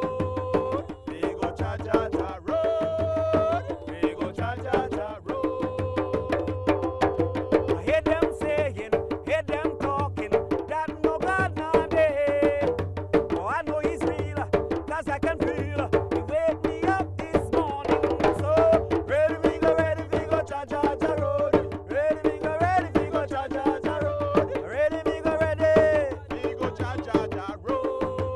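Ensemble drumming in a fast, steady rhythm, with voices singing a repeated folk chant over it.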